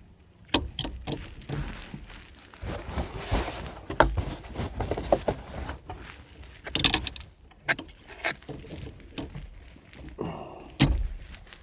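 Irregular metallic clicks, clinks and knocks of a steering wheel puller and its bolts being handled and fitted onto the steering wheel hub, with some rustling in between.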